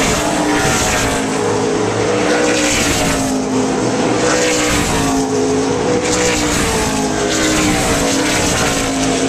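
NASCAR Cup stock cars' V8 engines running loud and continuous as several cars pass, their pitch rising and falling in waves as each car goes by.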